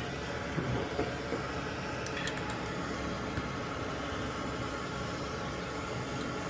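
Steady hiss of air from a fan, with a few soft knocks and faint small clicks from handling tools on the board.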